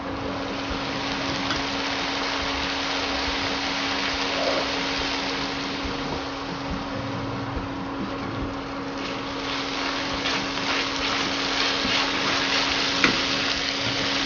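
Chopped onion and tomato frying in a kadhai: a steady sizzle with a steady hum underneath from the induction cooktop. From about nine seconds in, a silicone spatula stirs and scrapes the pan in short strokes.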